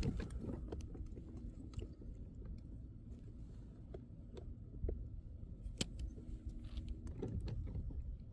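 Low steady rumble with scattered small clicks and knocks, one sharper click nearly six seconds in: handling noise.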